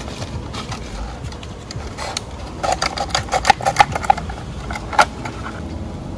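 A plastic bag of flour crinkling as it is squeezed and poured, with a quick run of crackles from about halfway through.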